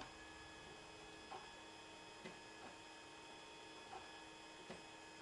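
A 3D printer running mid-print, heard faintly: a steady hum with a few soft, irregular ticks.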